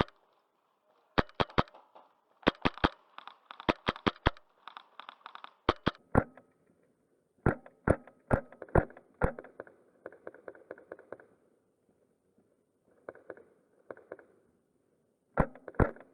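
Airsoft rifle fire: sharp snapping shots in quick strings of two to four, repeating every second or so, with a short lull around twelve seconds in before more shots near the end.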